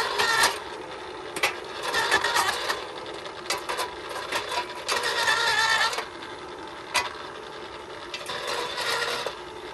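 RYOBI 40V brushless cordless earth auger with an 8-inch bit drilling into ground: the electric motor whirs steadily while the bit grinds and rattles through rocks and shells in uneven bursts, with sharp clicks now and then.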